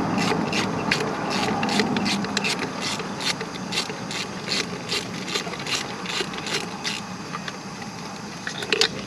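Small hand ratchet with a 12 mm deep socket clicking evenly, about four clicks a second, as it is worked back and forth to loosen the nut on the starter's cable terminal. The steady clicking stops about seven seconds in, with a few scattered clicks near the end.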